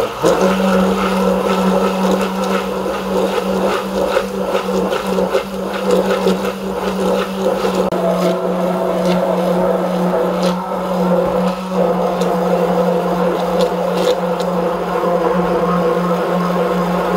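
Immersion (stick) blender starts running just after the start and keeps a steady hum in a stainless steel container, with frequent small clicks on top. Oil is being poured in gradually while it runs, emulsifying the mixture into mayonnaise.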